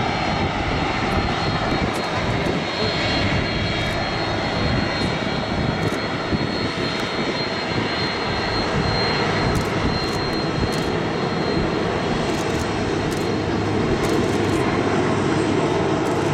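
Airbus A310-300 freighter's twin turbofan engines at taxi power: a steady jet rumble with a thin high whine held at an even level.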